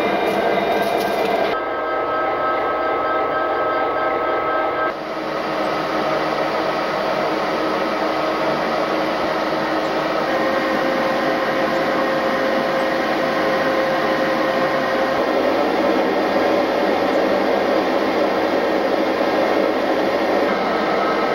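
EMD SD60M diesel locomotive idling, heard in and around its cab: a steady engine drone with a few held tones. The sound shifts abruptly twice in the first five seconds.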